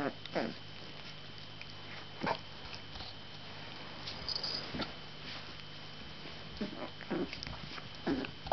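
A young puppy sniffing and moving about, with scattered short snuffles, soft scuffles and brief small noises.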